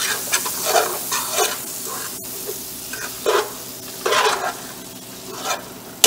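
Chopped steak and peppers sizzling in a frying pan while being stirred, with a steady sizzle and several short scrapes of a utensil against the pan.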